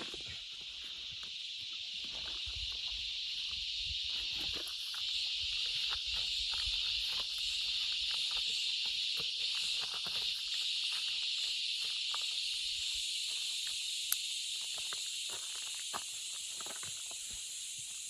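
Steady, high-pitched insect chorus that swells a few seconds in and then holds, over irregular footsteps on a bush track.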